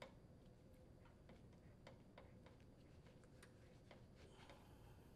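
Near silence with faint, irregular ticks from a Phillips screwdriver turning a screw into a sheet-metal frame, about one or two a second.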